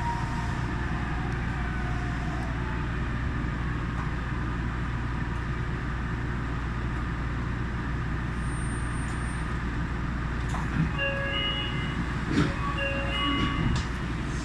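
Yui Rail monorail train running, a steady rumble and rushing noise from its rubber-tyred wheels on the guideway beam. Near the end, a few short pitched tones and light clicks sound over the rumble.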